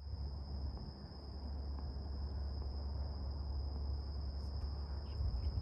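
Insects chirring in one steady, unbroken high-pitched tone, over a steady low rumble.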